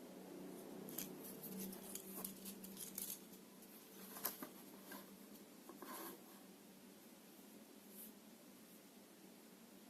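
Faint scratching, rubbing and light clicks of small objects being handled, in a cluster from about one to six seconds in, over a low steady hum.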